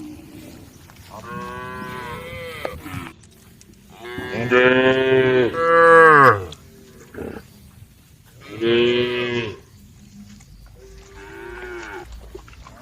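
Cattle mooing: four long, drawn-out calls a few seconds apart, the loudest and longest about four seconds in.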